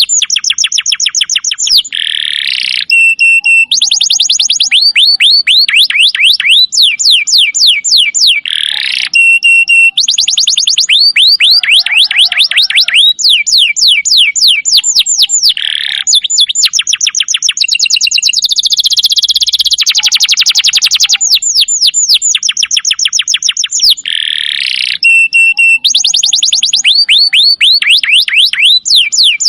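Domestic canary singing a loud, continuous song of rapid trills: runs of fast repeated notes, many sweeping downward, switching from one trill type to the next every second or two.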